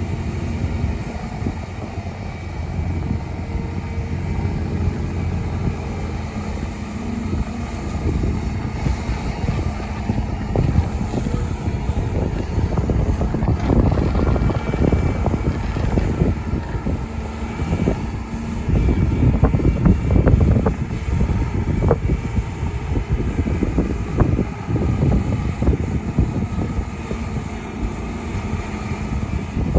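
Volvo EC300E excavator's diesel engine running steadily under load, with a stretch of clatter and knocks in the middle as soil and stones are loaded into a dump truck's bed.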